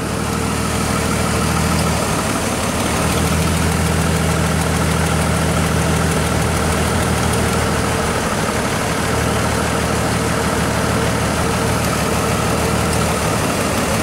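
2002 Chevrolet Trailblazer's 4.2-litre inline-six idling with a steady misfire, one cylinder dead from a failed ignition coil.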